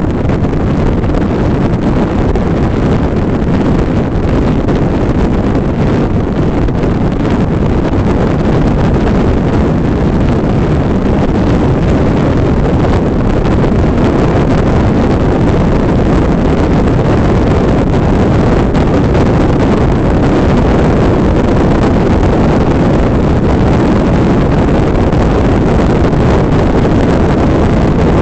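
Wind rushing over the microphone of a roof-mounted Polaroid Cube action camera on a car at highway speed, 60 to 80 mph: a loud, steady, deep rush with no breaks.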